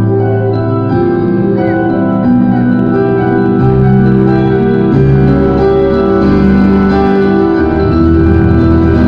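Three digital stage pianos played together live through a sound system: long held chords over a lower line that moves from note to note about once a second.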